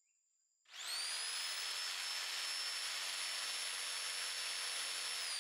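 Electric jigsaw cutting a vent hole in the side of a black plastic bin. The motor starts with a rising whine about a second in, runs steadily, then winds down with a falling whine near the end.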